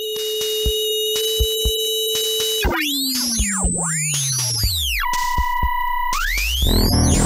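Electronic synthesizer music: a held tone with a ticking pulse, then swooping glides in pitch, one sliding down very deep, and about two seconds from the end a fuller low layer comes in under a rising glide.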